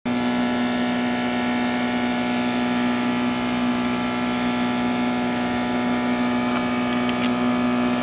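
Toauto 3 kg medium-frequency induction furnace running under power while melting its charge: a steady electrical hum with a strong low tone over the whir of its cooling fans. A couple of faint clicks near the end.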